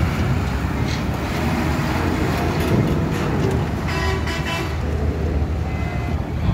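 Heavy-vehicle engines running: a loaded cargo truck pulling away up the ramp with a bus engine close by. A vehicle horn honks briefly about four seconds in.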